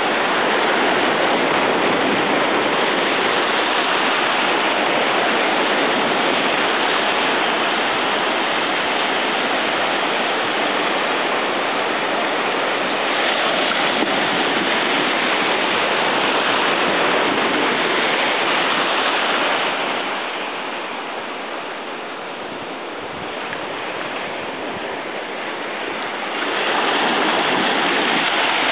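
Small waves washing in over a sandy beach at close range: a steady rush of surf that eases for several seconds about two-thirds of the way through, then swells again.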